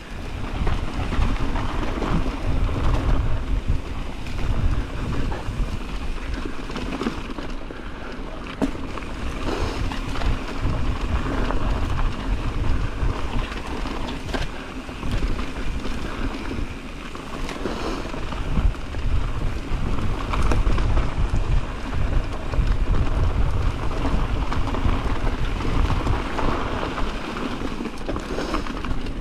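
Wind buffeting the camera microphone while a mountain bike rolls over a dirt trail, with a low uneven rumble from the tyres and a few short knocks as the bike goes over bumps.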